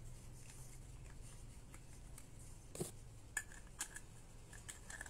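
Small clicks and taps from a camera zoom lens being handled and its parts fitted back on, a few scattered clicks with the clearest about three seconds in, over a low steady hum.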